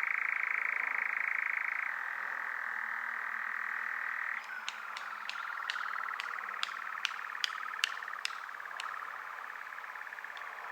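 European nightjar churring: a long, steady, rapidly pulsed mechanical trill that shifts pitch twice. Partway through, a run of about a dozen sharp clicks sounds over the churr.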